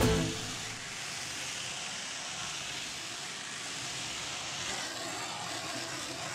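Water spraying steadily against a van's windshield, heard from inside the cab as an even hiss.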